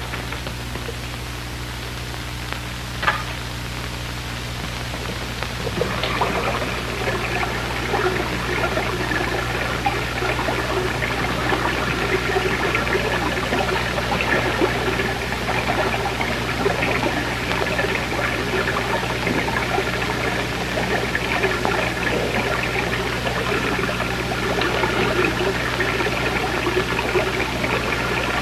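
Running water sound effect for the bottom of a lake, starting about six seconds in and continuing steadily over a constant low electrical hum. There is a single sharp click about three seconds in.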